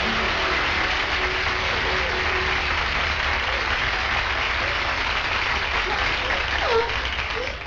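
Studio audience applauding steadily, easing off a little near the end.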